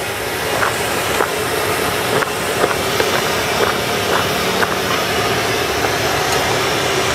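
Potato strips deep-frying in a large wok of very hot oil: a steady sizzle with frequent small pops and crackles as the oil foams up around the fresh batch. A low steady hum runs underneath.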